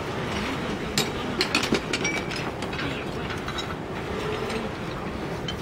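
Clinks and scrapes of ceramic roof tiles being handled and set into mortar, with a quick cluster of sharp clicks between about one and two seconds in.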